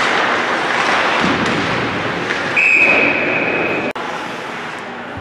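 Referee's whistle blown once: a single steady high-pitched tone of just over a second, about halfway through, cut off sharply, over the general noise of an indoor arena.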